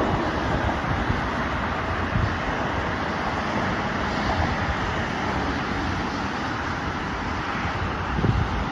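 Steady road traffic noise from cars passing on a multi-lane highway, with a few low wind buffets on the microphone.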